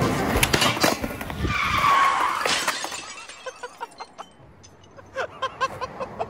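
Skateboard striking and scraping on a steel square rail and concrete as the skater bails. There are sharp knocks in the first second, then a longer scraping skid about two seconds in, and then it goes quiet.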